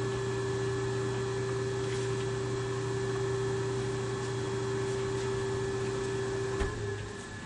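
Steady electrical hum with a higher tone over it from a rebuilt vintage General Electric three-phase motor on test run, fed by a rotary phase converter; the owner calls the motor really quiet and puts the hum down to the phase converter. About six and a half seconds in there is a click, and the hum drops away.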